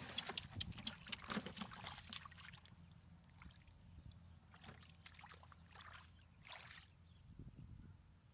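Splashing and sloshing of shallow muddy water as a person wades and gropes through it by hand. The splashing is busy at first, then thins to a few scattered splashes.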